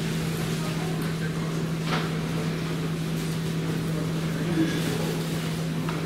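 Steady low hum from a stationary double-decker passenger train, its on-board equipment running at a constant pitch. A short knock sounds about two seconds in.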